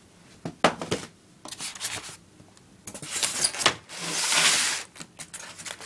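Handling noise from an airsoft pistol: scattered plastic-and-metal clicks and knocks, then a short hiss-like rustle about four seconds in.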